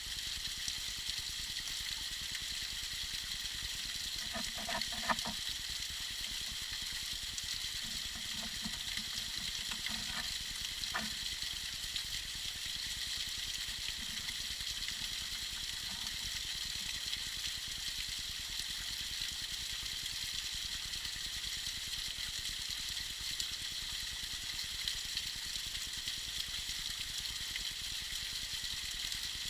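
Tiny waterfall splashing and trickling in a steady hiss, with a few short pitched gurgles about five and ten seconds in.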